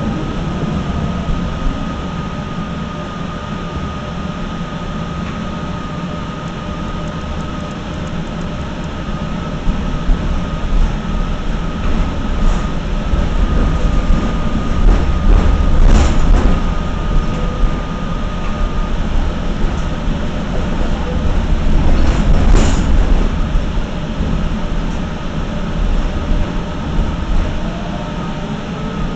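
Tatra KT8D5 articulated tram running along the track, heard from inside the passenger saloon: a steady rumble of wheels on rails under a steady high whine. The rumble swells through the middle. Two sharp knocks come about halfway and three-quarters of the way through.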